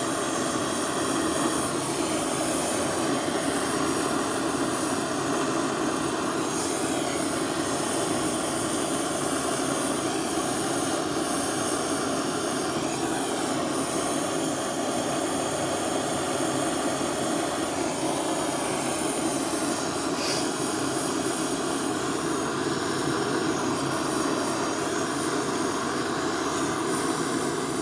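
Big blowtorch flame burning with a steady roar, heating a large silver piece for flood soldering.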